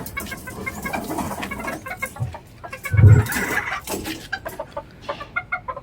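Bantam hens clucking in short, repeated notes, with a dull, loud thump about three seconds in.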